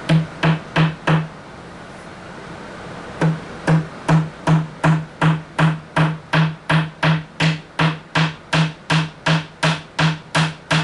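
Hammer tapping small nails into a wooden table edge to tack down a mat: four quick blows, a pause of about two seconds, then a steady run of blows about two and a half a second, each with a short low ring.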